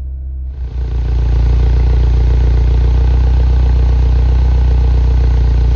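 2008 Mini Cooper S's turbocharged 1.6-litre four-cylinder engine idling steadily and smoothly, its random misfires cured by a new high-pressure fuel pump. About half a second in, the sound gets louder and fuller, with added hiss, then holds steady.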